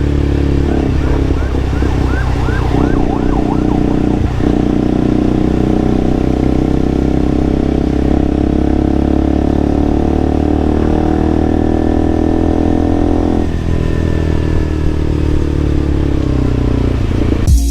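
KTM RC 200 motorcycle's single-cylinder engine running steadily while riding, picked up by a clip-on lavalier mic. A warbling siren sounds briefly about a second in, and the engine note drops near the end as the bike slows.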